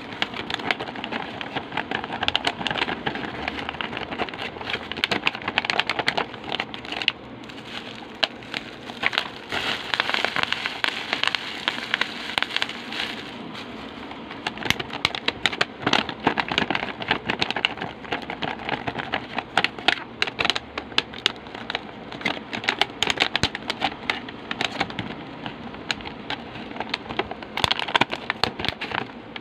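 Clear plastic packaging crinkling and crackling as it is handled and opened, with dense sharp crackles throughout.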